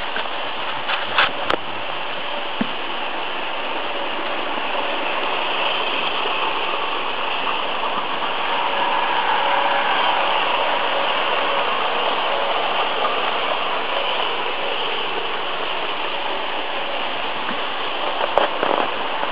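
Märklin model trains running on their metal track: a steady whirring rumble of wheels and motors that swells about halfway through as a coach passes close by. A few sharp clicks sound about a second in and again near the end.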